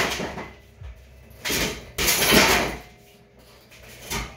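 A man practising kicks barefoot: a long hissing rush of noise with each kick, one fading just after the start and another from about a second and a half to nearly three seconds in. A short low thump comes near the end.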